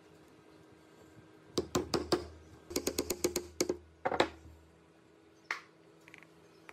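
Sharp clicks and taps of hard plastic as a blower motor's plastic cooling fan is worked onto the motor shaft: a run of about four clicks, a quicker run of about eight, a short cluster, then one last click near the end.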